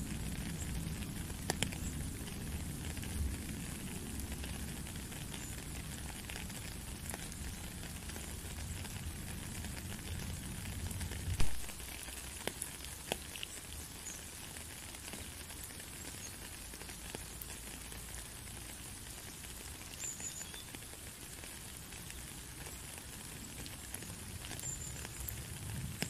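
Steady rain pattering onto a puddle and a wet stone path, with the sharp ticks of single close drops. A low rumble sits underneath the rain for the first half and ends with one loud thump about halfway through.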